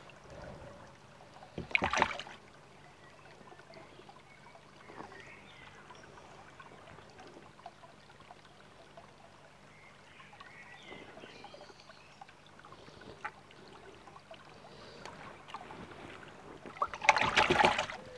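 Water splashing in a plastic bowl as a koi is held and handled in it, with two louder splashes, one about two seconds in and one near the end, and faint water movement between.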